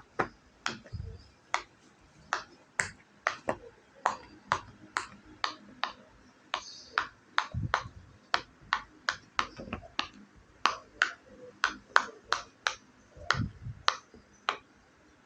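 Bubbles of a silicone pop-it fidget toy being pressed through one after another, each giving a sharp little pop, about two to three a second.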